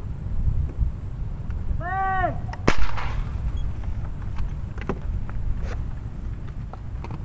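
An air gun used for fishing fires once with a sharp crack about two and a half seconds in, just after a brief squeaky tone that rises and falls. A few lighter clicks follow. Wind rumbles on the microphone throughout.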